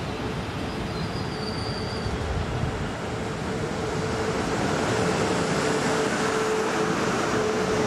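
South Western Railway Siemens Desiro electric multiple unit running past the platform: a rumble of wheels on rail with a steady whining tone, growing a little louder in the second half.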